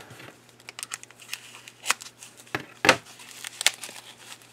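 Thin foam packing sheet rustling and crinkling as it is peeled off a plastic model kit part, with a few sharp crackles, the loudest nearly three seconds in.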